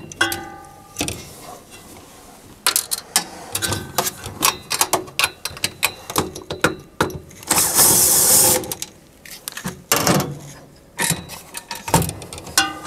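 Cordless drill/driver backing out a screw from a sheet-metal panel in one run lasting about a second, some eight seconds in, amid light metallic clicks and clinks of screws, nuts and an open-end wrench being handled.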